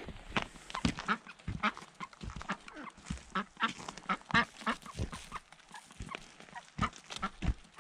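Ducks quacking in many short, repeated calls, over crunching footsteps on frozen snow.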